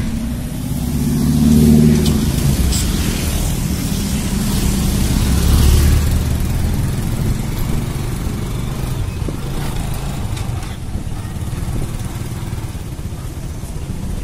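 Motor scooter running while being ridden, with engine and road noise. A pitched hum swells briefly about a second or two in, and a lower rumble swells about five seconds in.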